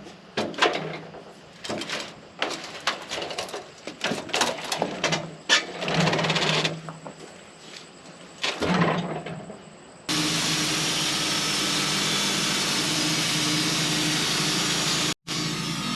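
Irregular knocks and clunks of a log being rolled on a sawmill, over the low hum of the running mill. About ten seconds in, this gives way abruptly to the loud, steady noise of the sawmill running with its carbide blade.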